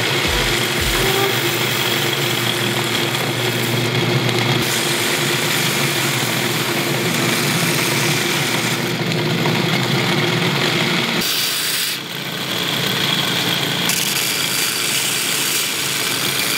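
Belt grinder running with a forged 1045 steel axe head pressed against the moving belt, a steady grinding of metal on abrasive that shifts in tone as the pressure changes. There is a brief drop in level about twelve seconds in.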